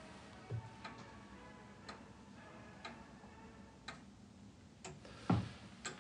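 A clock ticking about once a second, with a louder low thud about five seconds in.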